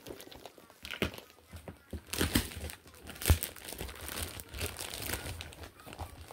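Plastic courier mailer bag being crinkled and torn open, a run of irregular crackling rustles with a sharper, louder crackle about three seconds in.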